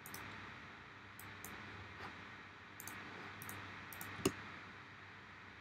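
A handful of faint, short computer mouse clicks over a low steady hiss. The loudest click comes about four seconds in, closely after another.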